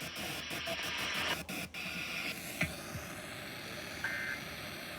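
Radio static hiss with scattered clicks, and a short high two-tone burst about four seconds in.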